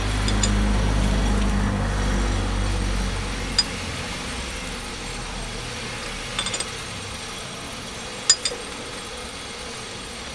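A vehicle engine running at a low steady drone that fades out after about three seconds, followed by a few light metallic clinks of hand tools on the engine as it is turned by hand to line up the timing marks.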